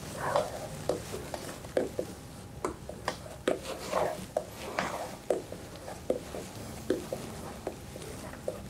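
Silicone spatula folding whipped egg white into strawberry cake batter in a stainless steel mixing bowl: soft wet scraping and squelching, with irregular light taps and clicks of the spatula against the bowl.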